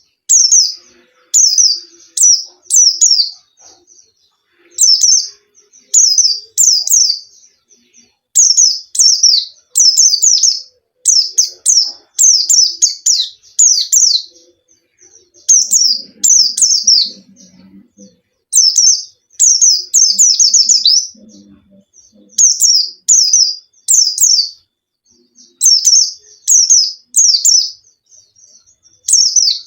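A pleci (white-eye, Zosterops) singing in full, lively song: short, high phrases of rapid down-slurred notes, a new phrase every second or two with brief pauses between.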